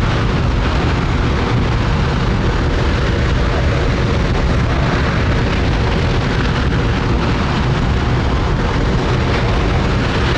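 Space Shuttle Main Engine (RS-25 liquid-fuelled rocket engine) firing on a test stand: a loud, steady, unbroken rocket-exhaust noise, strongest in the bass.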